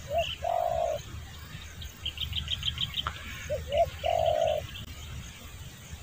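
Spotted dove cooing twice, each call two short rising notes and then one longer held coo, about three and a half seconds apart. Small birds chirp high above it, with a quick run of chirps in the middle.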